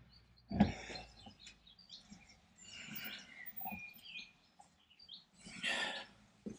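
Faint birds chirping, with a short knock about half a second in and a brief clatter near the end.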